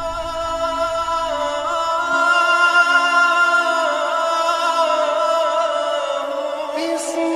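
Intro music with a chanting voice holding long, slowly wavering notes over a steady drone, with a short whoosh near the end.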